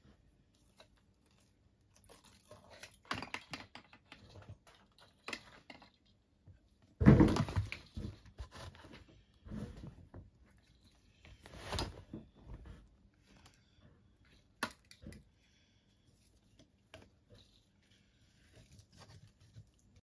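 Scattered rustling, light taps and small knocks of hands handling a string of fairy lights and things on a crowded shelf, loudest about seven seconds in.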